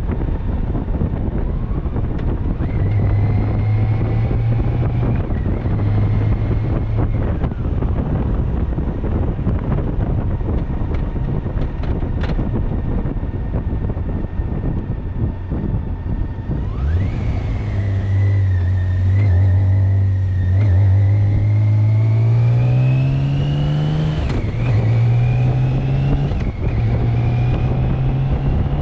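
Loud wind noise blasting over the microphone of a motorcycle-mounted camera, with a BMW K1600GTL's inline-six engine under it. A bit past the middle the engine note climbs steadily in pitch as the bike accelerates, drops briefly, then rises again.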